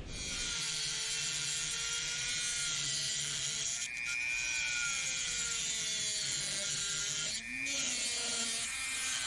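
Dremel rotary tool cutting into the steel of an old monkey wrench: a steady high-speed whine whose pitch wavers with the load, easing off briefly twice.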